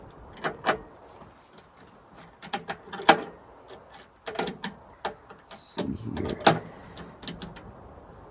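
Fire alarm control panel door being worked open with its key: a run of irregular clicks, knocks and rattles, loudest about three seconds in and again near six and a half seconds. The door is stiff and hard to get open.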